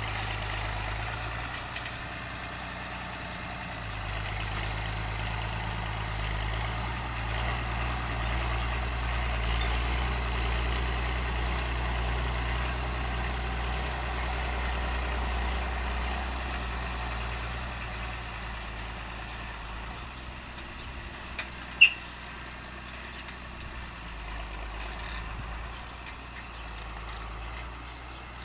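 Fiatagri 100/90 DT tractor's six-cylinder diesel engine running steadily, quieter in the second half. A single sharp click about 22 seconds in.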